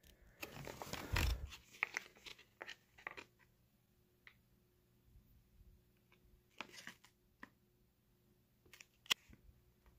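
Plastic and foil packaging pouches rustling and crinkling as they are handled. A dense run of crinkles in the first three seconds, then scattered short rustles and clicks.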